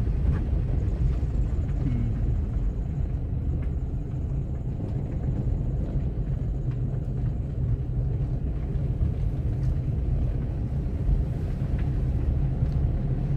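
Steady low rumble of a Suzuki car's engine and tyres on the road, heard from inside the cabin while it drives along.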